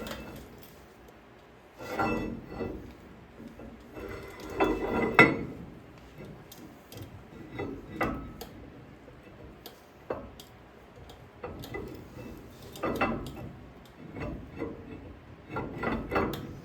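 Metal parts and hand tools clinking and knocking during hands-on axle assembly, with a few louder clunks at irregular intervals.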